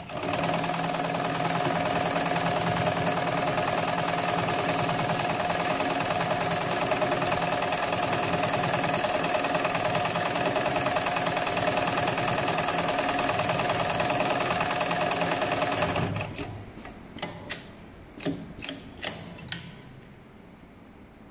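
HighTex 7273PLK heavy-duty programmable pattern sewing machine running steadily for about fifteen seconds as it stitches a pattern through multi-ply synthetic webbing with very thick thread, then stopping. A string of sharp clicks and knocks follows as the machine ends its cycle.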